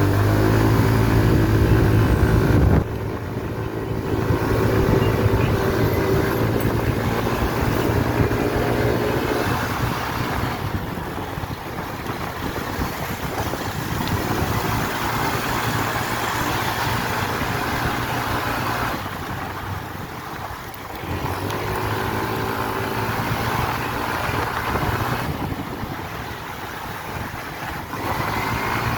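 Yamaha BWS 125 scooter's single-cylinder engine running. It is loudest at first, drops sharply about three seconds in, then keeps running with its pitch and level shifting in several stretches.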